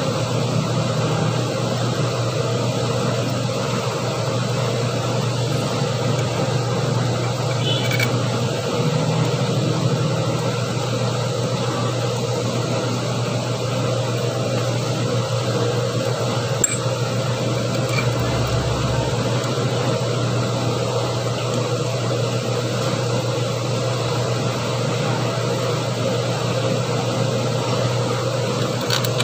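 Steady mechanical hum, like a running fan, with a few faint clicks.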